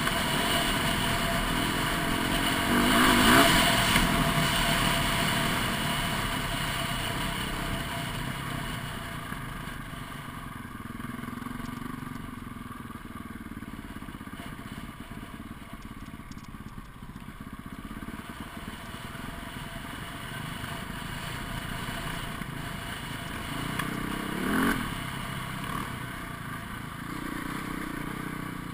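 Dirt bike engine running as the bike rides a rough trail. It revs up hard about three seconds in, runs more quietly through the middle, and revs up briefly again near the end.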